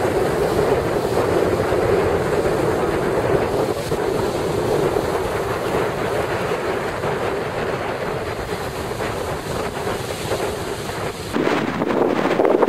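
Strong wind buffeting the microphone over surf washing onto the beach. About eleven seconds in the sound changes abruptly and gets louder, still wind on the microphone.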